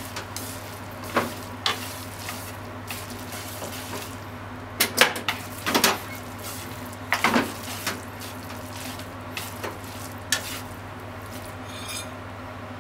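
Noodles, onions and mushrooms sizzling in a frying pan as they are stirred and tossed with a wooden spatula and chopsticks, which knock and scrape against the pan. The knocks come in quick clusters, loudest about five and seven seconds in.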